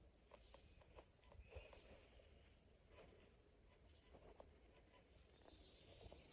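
Near silence, with faint, short bird chirps now and then and a few soft clicks.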